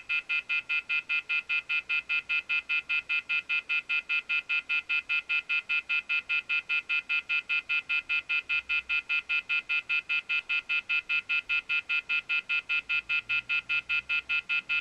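Cordless telephone handset beeping rapidly and without letup, about four short electronic beeps a second, every beep the same pitch.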